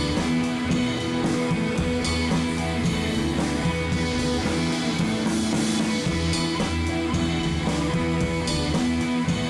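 Background rock music with electric guitar and drums keeping a steady beat.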